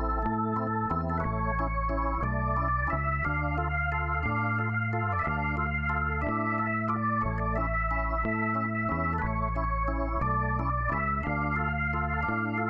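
Outro background music: held chords over a low bass line, the chords changing about once a second.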